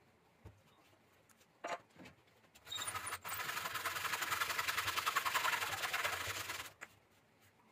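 A long steel blade scraping across the rough, rotten surface of a jackfruit log held on a wood lathe: one continuous scraping for about four seconds, starting a little under three seconds in, after a few light knocks.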